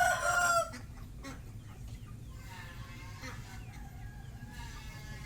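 Rooster crowing: one loud, held call that ends under a second in, then fainter calls from about two and a half seconds in.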